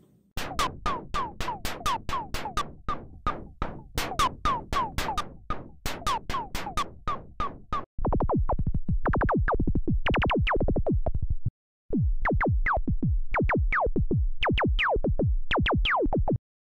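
Loops from a Behringer CAT analog synthesizer played back in turn: first a fast pattern of short electronic blips, each falling in pitch, about four a second. About eight seconds in it switches to a denser loop of falling zaps, which breaks off briefly and gives way to another zapping loop near the end.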